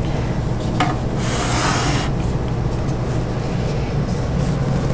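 A painted doll-armoire door panel handled and rubbed against the armoire as it is set in place at the hinges: a click just under a second in, then a scraping rub for about a second, and a few light taps, over a steady low hum.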